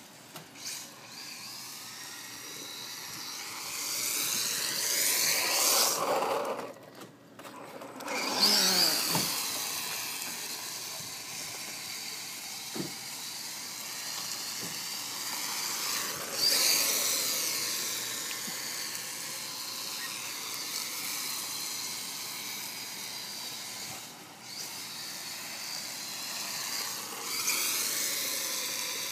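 Small radio-controlled drift car's electric motor whining, its pitch rising and falling as it speeds up and slows, with tyre hiss on asphalt as it slides. The sound drops out briefly about seven seconds in.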